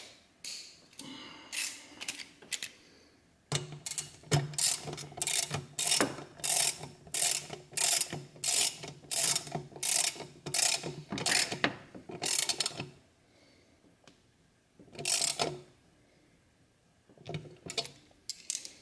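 Socket ratchet clicking in quick, even back-swings, about two strokes a second, as it runs a 10 mm nut down onto a bracket stud. The strokes stop about 13 seconds in, and a few more follow near the end.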